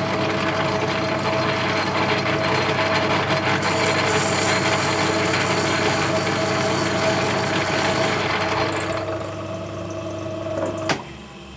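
Myford Super 7 lathe running in back gear, its change-gear train and lead screw power-feeding the carriage while a single-point tool cuts a 1.5 mm metric thread: a steady mechanical whine and gear noise, with a harsher hiss in the middle of the pass. Near the end a sharp click as the motor is switched off, and the sound falls away.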